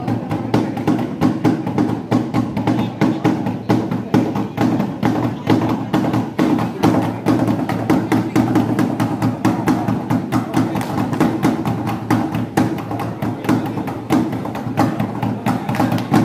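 Traditional hand drums played in a fast, steady, driving rhythm over a sustained pitched layer: live accompaniment music for a silat performance.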